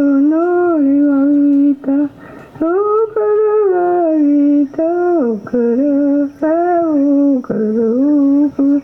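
A single voice humming a slow, wordless melody in long held notes, with short breaks between phrases.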